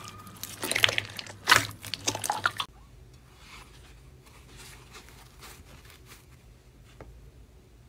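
Crunchy slime being squeezed and pressed, giving dense crackling and popping. It stops abruptly about two and a half seconds in, and only faint soft crackles and a single click follow.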